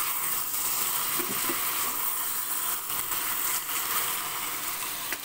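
Chopped onions and green chillies frying in ghee in a pan: a steady sizzle.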